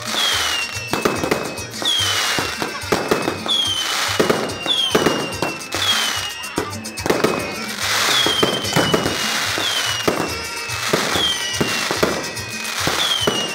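Fireworks firing in quick succession. About once a second a whistle falls in pitch, among repeated bangs and crackling bursts.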